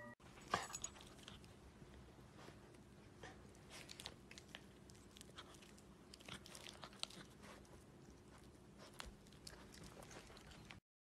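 Near silence: faint room tone with a low steady hum and scattered soft clicks and rustles. The sound cuts to complete silence near the end.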